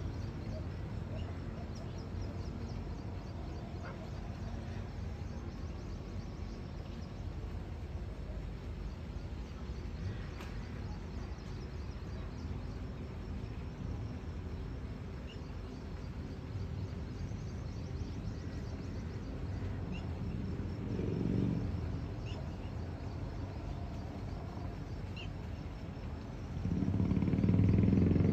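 Outdoor ambience: a steady low rumble with a few faint, short high chirps scattered through it. Near the end it turns into a louder rush of low noise.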